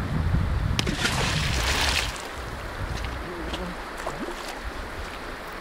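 A thrown rock splashing into a river about a second in.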